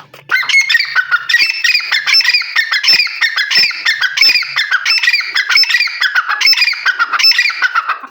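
Caged grey francolin (teetar) calling loudly: a fast, unbroken run of repeated shrill notes that goes on for about eight seconds and stops abruptly near the end.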